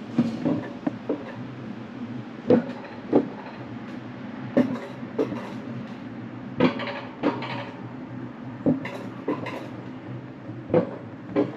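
Wiegand Alpine Coaster sled being hauled up the cable lift hill: a steady rumble of its wheels running on the steel tube rails, with paired clacks about every two seconds.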